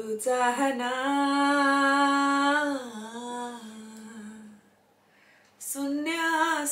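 A solo voice singing a slow Nepali song without words, holding one long steady note that slides down to a lower held note. After a pause of about a second the singing resumes near the end.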